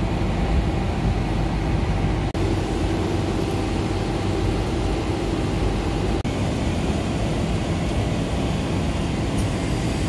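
Steady drone of VRF air-conditioner outdoor units running, a low rumble with a steady hum in it. It cuts out for an instant twice.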